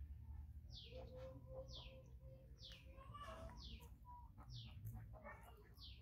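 A bird repeating a short, high call that falls in pitch, about once a second, faint over a low steady hum.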